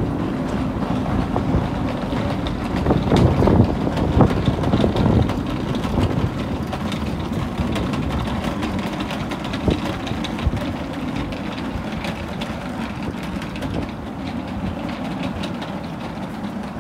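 Train running on rails: a steady low rumble with many small clicks from the wheels, easing a little near the end.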